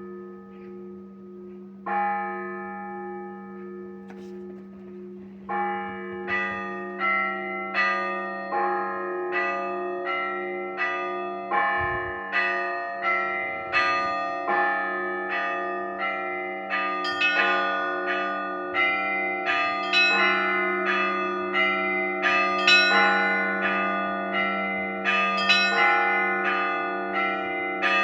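Russian Orthodox church bells ringing over a steady low tone: a couple of single strokes at first, then from about six seconds in a quick peal of several bells of different pitches, roughly two strikes a second, growing louder.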